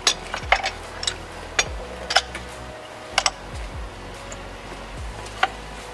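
Irregular sharp clicks and knocks of hand tools and parts being handled during brake pad work, one or two a second with a quick double about three seconds in, over a low steady hum.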